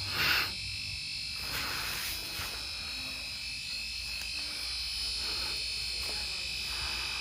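Laptop speakers stuck on a steady, high-pitched buzzing tone, the looping audio glitch of a blue-screen crash. A brief louder burst of noise comes about a third of a second in.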